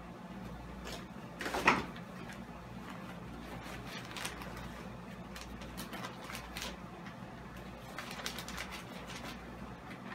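Plastic bag of peat moss being handled and opened, crinkling in scattered sharp rustles, with one loud crackle about a second and a half in.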